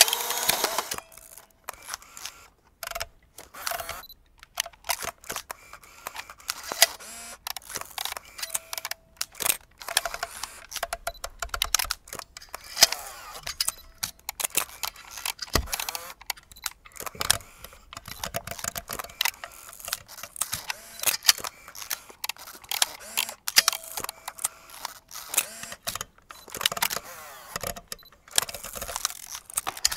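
Vintage film camera mechanisms worked by hand: many sharp shutter and lever clicks at irregular spacing, with longer whirring mechanical stretches about eleven seconds in and again near the end.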